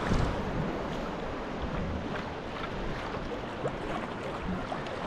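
Sea water splashing and sloshing around a sea kayak's hull as it moves, with wind buffeting the microphone.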